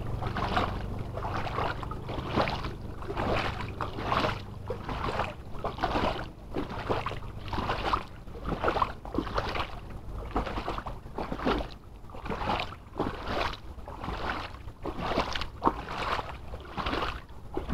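Footsteps wading through floodwater covering a street, a slosh and splash with each stride, about one and a half strides a second, over a faint steady low hum.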